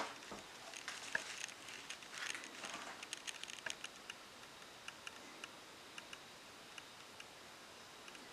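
Faint scattered clicks and crinkles of a plastic piping bag being handled and squeezed while macaron batter is piped onto a parchment-lined baking sheet, opening with one sharp click. The ticks are busiest in the first half and thin out after about five seconds.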